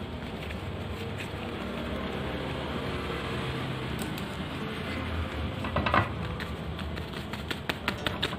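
Fresh banana leaf crackling and rustling as it is folded and rolled by hand, over a steady background hum. The loudest crinkle comes about six seconds in, and a few sharp crackles follow near the end.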